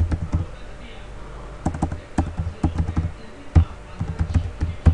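Typing on a computer keyboard: irregular keystroke clicks, a few a second, thickening from about one and a half seconds in.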